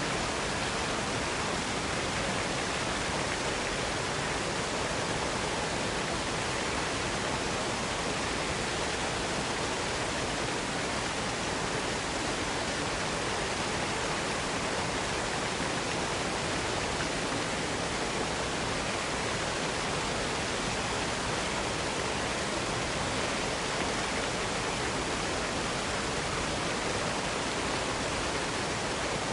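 Waterfall rushing in a steady, unbroken hiss, with no separate splashes or other sounds standing out.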